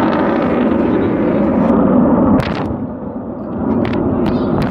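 Loud jet noise of an Avro Vulcan's four Rolls-Royce Olympus turbojets flying past, a deep rumble that drops off about two and a half seconds in. A few short sharp clicks follow.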